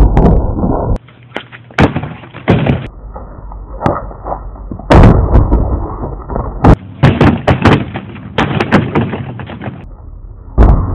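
Slowed-down thumps and smacks from kicking practice, kicks striking a free-standing punching bag and feet landing on concrete, over a low rumbling background. The sound changes abruptly several times where different clips are cut together.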